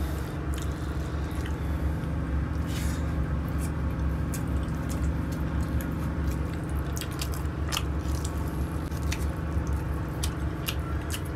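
Wet squishing of fingers mixing rice and meat curry on a steel plate and pulling meat off the bone, with scattered small clicks and wet smacks, over a steady low rumble in the train cabin.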